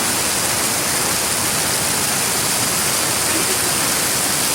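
Falling water at a waterfall, a steady, even rush with a bright hiss.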